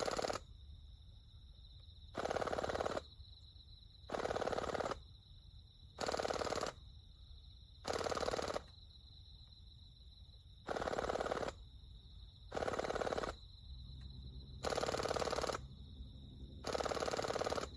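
Airsoft P90 fired dry in short full-auto bursts, heard from about 30 m away: eight bursts of rapid fire, each under a second long, about two seconds apart.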